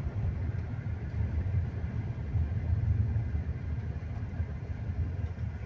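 Steady low rumble of a vehicle's engine and road noise, heard from inside the cabin while driving.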